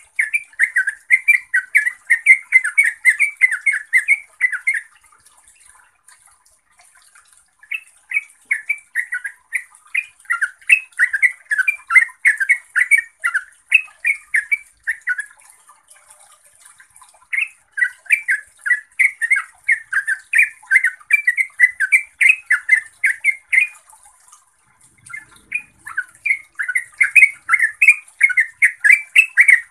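Yellow-vented bulbul singing: long runs of fast, chattering, rising-and-falling notes, in four bursts of several seconds each with short pauses between them.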